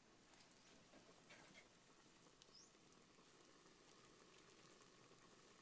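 Near silence: a faint hiss with a few scattered faint ticks and crackles from a wood cooking fire and the pot of rice on it.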